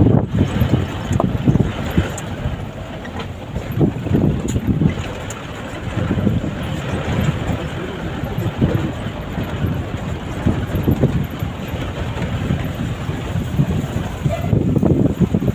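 Vehicle cabin noise while driving on a rough dirt road: a steady engine and road rumble, with frequent short knocks and rattles as the vehicle jolts over bumps, and some wind on the microphone.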